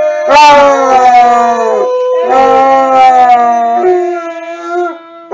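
Basset hound howling: three long drawn-out howls in a row, each sliding slightly down in pitch, the last one lower and softer.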